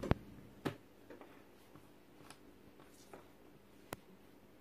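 Small clicks and taps from handling a mobile phone while fitting a SIM card into it: a sharp click right at the start, another about half a second later and one near the end, with faint ticks between.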